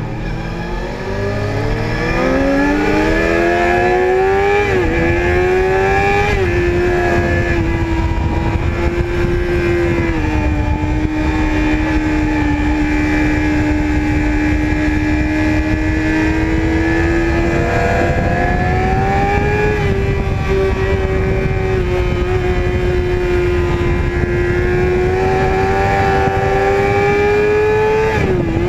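Sport motorcycle engine heard from onboard. It accelerates hard, rising in pitch over the first five seconds with a couple of quick changes around five and six seconds, then holds high revs with small rises and dips, and a brief dip near the end. Wind rushes over the bike throughout.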